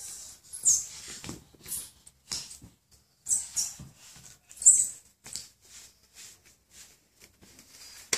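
Baby crawling on a tiled floor, making a run of short, irregular sounds, about one or two a second.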